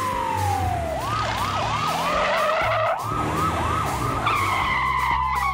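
Police siren: a tone that slides down, then a fast rising-and-falling yelp about three times a second, sliding down again near the end, over a low steady vehicle hum.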